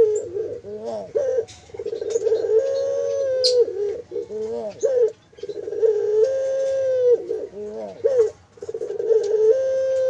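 Puter dove (domestic ringneck dove) cooing over and over. Each call is a long, steady low coo that steps up in pitch and back down, followed by a few short wavering notes, and a new call comes about every three and a half seconds.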